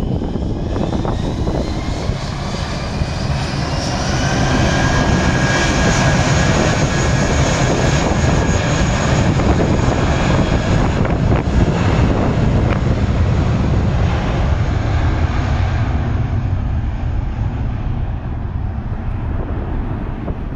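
Twin jet engines of a Jetstar Airbus A320-family airliner spooling up to takeoff power: a rising whine over a loud, steady roar. About three-quarters of the way through, the roar eases a little as the plane runs away down the runway.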